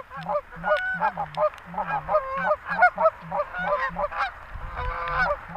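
Canada geese honking: many short two-note honks overlapping in quick succession from a flock coming in to land.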